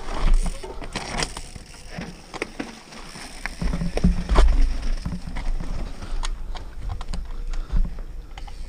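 Mountain bike rattling over rock on a descent: many sharp clacks and knocks from the chain and frame, with heavier low thumps as the wheels drop over rock, strongest about four seconds in.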